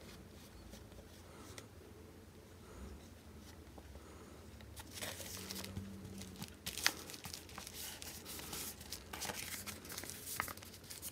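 Kraft paper envelope being handled close up: a few quiet seconds, then paper rustling and crinkling from about five seconds in as the flap is folded and sealed with a round sticker, with one sharper tap near seven seconds.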